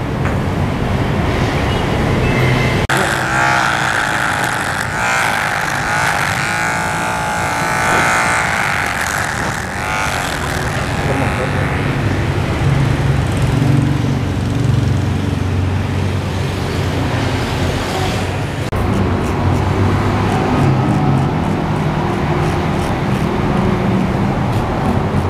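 Road traffic: vehicle engines running steadily with a constant low rumble.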